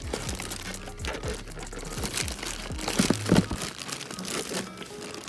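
Plastic bags crinkling and boxes rubbing and shifting as a hand rummages through a packed clear plastic storage bin, irregular and loudest about three seconds in.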